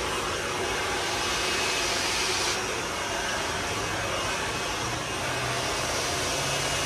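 Handheld blow dryer running steadily on the hair, its rushing air growing a little duller about two and a half seconds in as it is moved.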